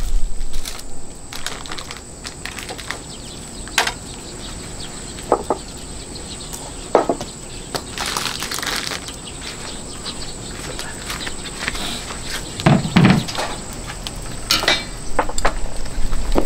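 Scattered clatter and knocks of dishes, trays and utensils being set down and moved about on a wooden table, with the strongest, deepest knock a little after halfway.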